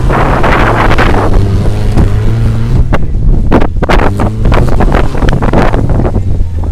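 Off-road 4x4 vehicle's engine running steadily, with a string of sharp knocks and rattles and wind buffeting the microphone.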